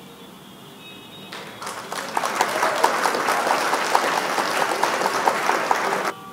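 Applause sound effect that swells in over about a second and cuts off abruptly near the end, played as the correct answer is revealed.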